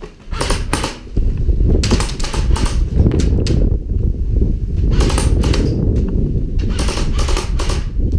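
Airsoft AK-pattern electric gun firing about five short bursts of rapid shots, over a steady low rumble.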